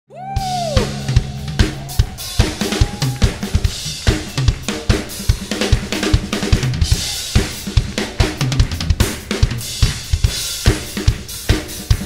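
Drum-driven intro music: a full drum kit with bass drum, snare and cymbals playing a busy beat. A short tone rises and falls right at the start.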